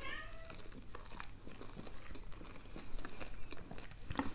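Close-up chewing of a tempura-battered sushi roll: irregular small crunches and mouth clicks.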